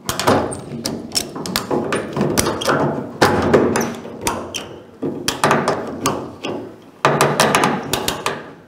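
Ratchet strap being cranked: the buckle's handle clicks over its toothed spool in four quick runs of rapid clicks and knocks, tightening the strap to draw the cut A-pillars of a 1951 Chevy truck cab inward.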